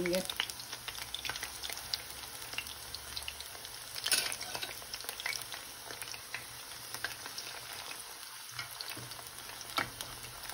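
Batter-coated chicken pieces shallow-frying in hot oil over medium heat, a steady sizzle. Scattered clicks and scrapes come from a slotted spatula and a spoon turning the pieces in the pan, the loudest about four seconds in.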